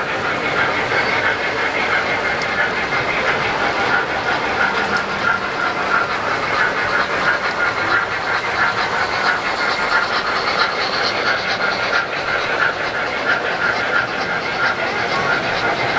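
O-scale model trains running on a layout: a steady whir of electric motors and gearing with the fast clicking of wheels over the track.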